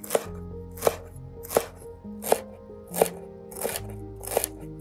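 A kitchen knife chopping fresh dill on a wooden cutting board. The blade knocks sharply against the board seven times, evenly, about once every three-quarters of a second.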